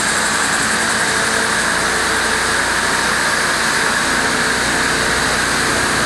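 A steady, loud mechanical drone with a high whine in it, running without change.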